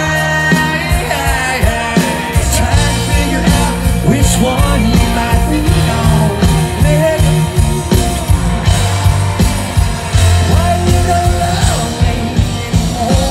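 Live country-rock band playing loudly through a PA: a male lead singer sings over a steady drum beat, electric guitars and bass.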